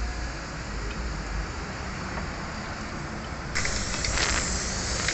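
Steady background noise, then from about three and a half seconds in a socket ratchet clicking as it works on the automatic transmission oil pan bolts.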